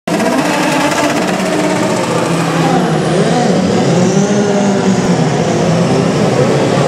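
Racing car engines running, with several engine notes rising and falling over one another.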